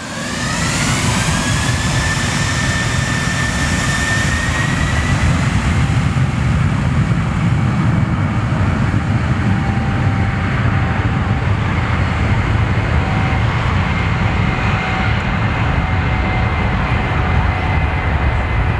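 Jet airliner's engines heard at close range: a loud low rumble with a turbine whine that falls in pitch over the first few seconds, then holds steady.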